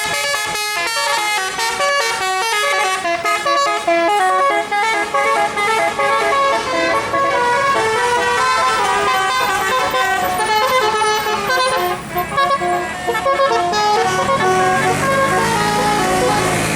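Tour bus's 'telolet' multi-note musical air horn playing a long, rapid tune of stepped notes. Near the end the bus engine comes in underneath, rising in pitch as it revs.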